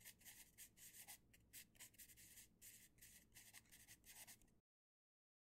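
Faint pencil scratching on paper in quick, irregular writing strokes, stopping abruptly about four and a half seconds in.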